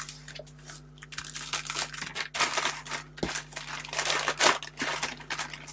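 Clear plastic kit bag crinkling and rustling as the grey plastic parts sprue inside it is handled. There are a few scattered crackles at first, then a dense run of them from about a second in.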